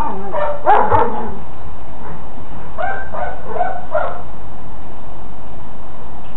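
Young female Belgian Malinois giving short, high-pitched barks: two near the start, then about four in quick succession around three seconds in.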